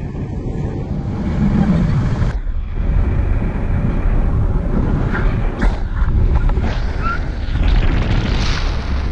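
Wind buffeting a camera microphone in flight under a tandem paraglider: a loud, steady, low rumble.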